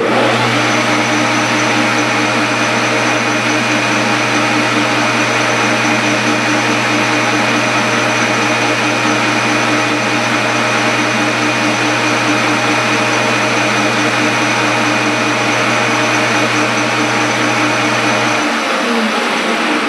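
Metal lathe switched on and running at steady speed: an even motor hum with a steady whine from the drive. Near the end it is switched off and winds down.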